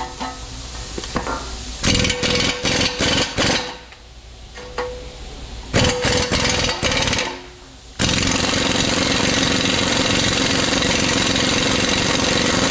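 Impact wrench hammering on a stubborn fastener: several short bursts, then a long continuous run over the last five seconds.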